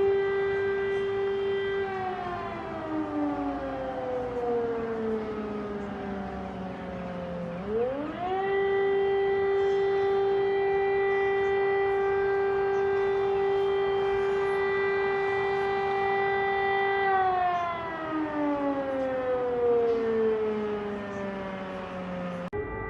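Air raid siren wailing, the alert for an incoming air attack. It holds a steady tone, slowly slides down in pitch, swoops quickly back up about eight seconds in and holds for about nine seconds. It then slides down again, and near the end it jumps abruptly back to the steady tone.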